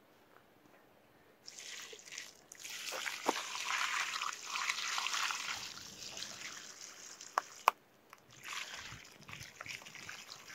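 Water poured from a plastic bucket onto loose, stony garden soil, splashing and trickling; it starts about a second and a half in, breaks off briefly near the end and then resumes. Two sharp clicks come just before the break.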